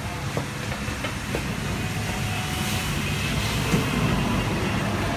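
Steady low background rumble that slowly grows louder, with a few faint clicks in the first second and a half.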